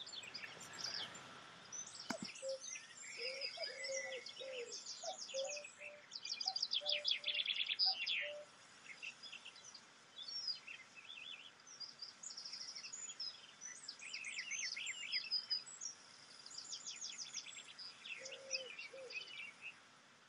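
Bird chorus: several birds chirping and trilling, with a few low short whistled notes among them and the loudest stretch a rapid trill about seven seconds in.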